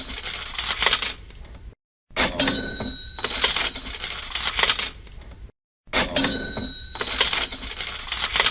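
Cash register sound effect played on a loop: a bell ring followed by a rattle of coins, repeating about every three and a half seconds with a short silent gap between repeats. About two repeats fall here: the end of one, one whole repeat, and the start of the next.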